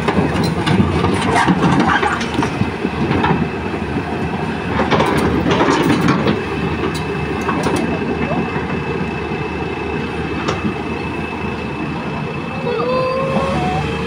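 Hyundai crawler excavator running under load as its bucket scrapes and breaks up old concrete, with clattering, crunching impacts of concrete chunks in bursts in the first half. A steady high whine joins about halfway through.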